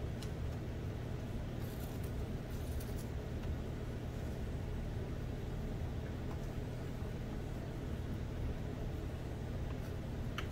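A steady low hum of room noise, with a few faint clicks and rubbing as a rugged rubber case is pressed onto the edges of a tablet.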